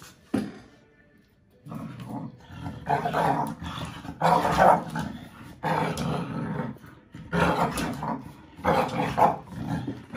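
Dogs growling in play during a tug-of-war over a rubber toy, mostly from the American Bully puppy. After a short knock at the start and a quiet couple of seconds, the growls come in a run of rough bouts about a second long, one after another.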